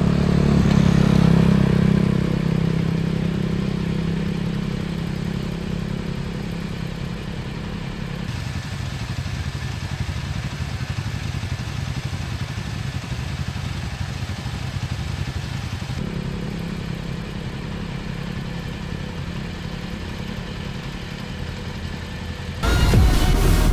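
Motorcycle engine running steadily while riding, with road and wind noise; the sound steps abruptly about a third and two-thirds of the way through.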